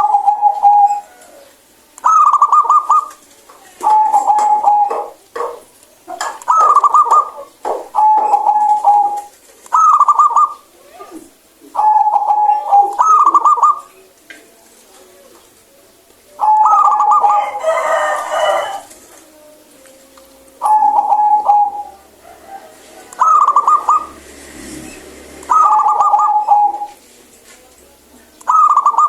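Zebra dove (perkutut) singing its cooing song: about a dozen phrases of roughly a second each, every one stepping down from a higher note to a lower one, with short pauses between. One phrase near the middle is fuller and busier than the rest.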